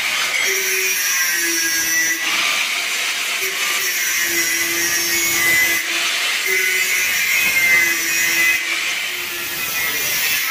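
A power tool running steadily, with a wavering high whine over a hiss and a lower hum that comes and goes.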